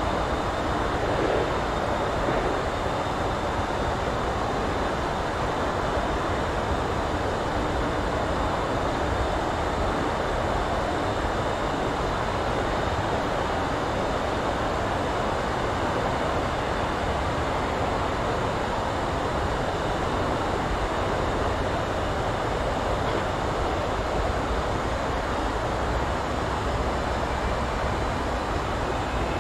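A passing train: a steady, unbroken rumble of wheels on rail that holds at one level throughout.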